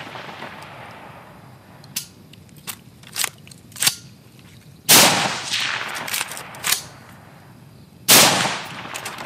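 JP-15 AR-15 rifle firing two single shots about three seconds apart, with sharp metallic clicks between them as the bolt is worked by hand. The rifle is short-stroking and failing to cycle, which the shooter puts down to water flooding the buffer tube.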